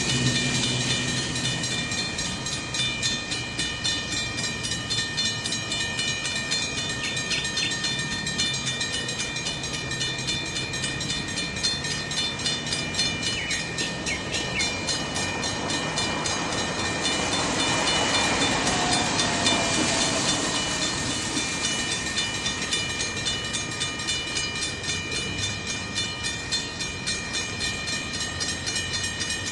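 Train rolling slowly past, hauled by an ALCo FPD-9 diesel locomotive. The locomotive's engine hum fades in the first seconds, leaving the wagons' rapid, even clatter and a steady high squeal from the wheels or brakes. The sound swells briefly a little past the middle.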